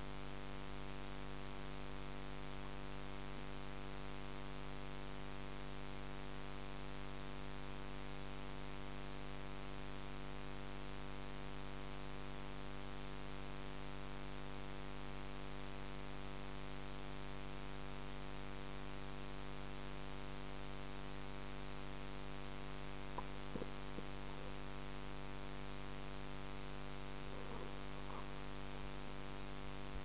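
Steady electrical hum made of several fixed tones over a hiss, unchanging throughout, with a few faint short sounds late on.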